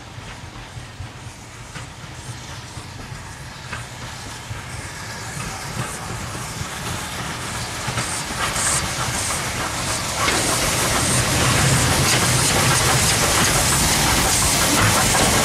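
Ivatt class 2MT 2-6-2 tank steam locomotive No.41312 approaching with a train. It runs with a steady hiss of steam over a low rumble, growing louder throughout, with a sharp jump in loudness about ten seconds in as it draws close.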